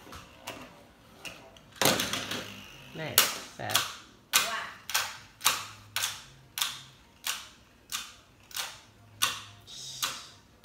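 Beyblade spinning tops clashing in a plastic stadium: a burst of clatter about two seconds in, then sharp clacks repeating at a steady beat of well under two a second.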